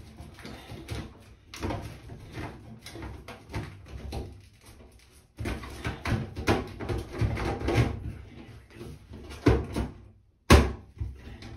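Metal bathroom exhaust fan housing being worked up into a ceiling opening by hand: scraping and rustling with scattered knocks and clicks against the ceiling, and one sharp loud knock about ten and a half seconds in.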